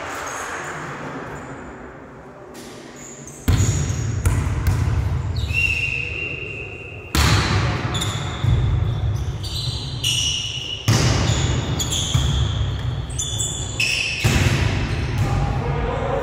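Volleyball rally in a gym hall: about half a dozen sharp slaps of hands hitting the ball and the ball striking the floor, the first about three and a half seconds in, each followed by a booming hall echo. Brief high squeaks of sneakers on the court floor come between the hits.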